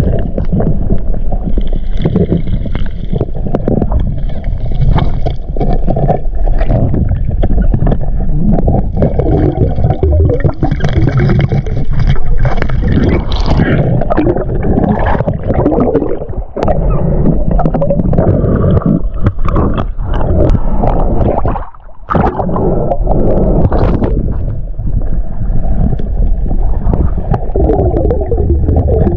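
Muffled rushing and gurgling of water picked up by a camera in an underwater housing as a diver swims. It runs loud and dense throughout, with a brief lull about three-quarters of the way through.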